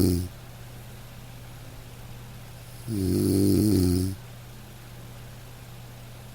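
Snoring: one snore tails off right at the start, then one full snore about three seconds in lasts just over a second, with a faint steady low hum in the pauses between.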